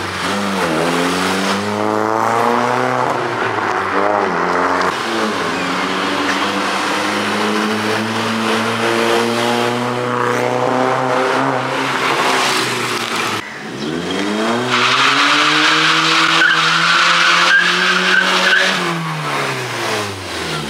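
Volkswagen Vento with a loud modified exhaust, its engine revving as the car is driven past. The pitch climbs and falls several times, drops suddenly about two-thirds of the way through, climbs again, then falls away near the end.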